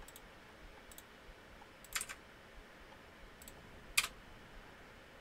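Sparse clicks from a computer mouse and keyboard. A few faint clicks, a louder cluster of two or three about two seconds in, and one sharp click about four seconds in.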